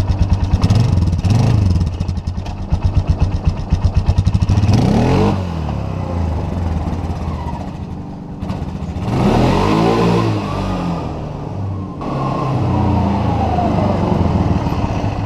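Polaris Sportsman 500 ATV's single-cylinder engine running, with rapid even pulsing early on and two revs that rise and fall in pitch, about five and ten seconds in.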